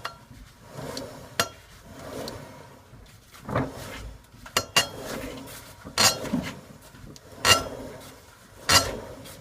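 Sharp metallic clinks with a short ring, repeating about every second and a half, from the Lada Niva's front driveshaft as the jacked-up front wheel is turned by hand. This is the squeak and clank the owner is hunting, which he suspects comes from a driveshaft universal-joint cross.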